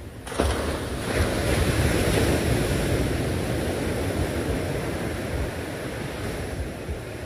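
Ocean surf breaking onto jetty boulders and washing back, with wind buffeting the microphone. A wave crashes just after the start and the rush of water slowly eases off.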